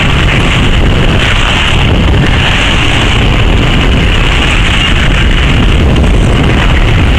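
Loud, steady wind rush over the microphone of a moving scooter, mixed with engine and road noise.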